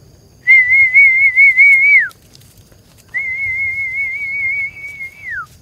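A woman whistling two long, high notes through pursed lips, each held with a slight warble and sliding down at the end, the second quieter than the first: a whistle to call her dogs back.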